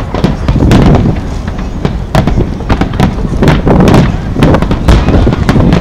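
Aerial fireworks shells bursting in rapid succession: a dense run of loud bangs and crackles over a continuous low rumble.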